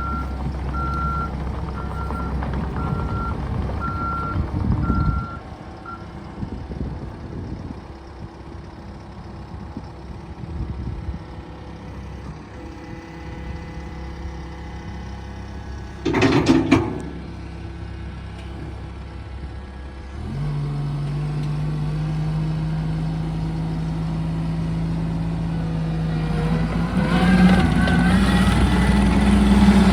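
Skid steer engine running, its backup alarm beeping steadily for the first five seconds as it reverses. A short loud clatter comes about 16 seconds in, then the engine speeds up about 20 seconds in and gets louder and higher toward the end.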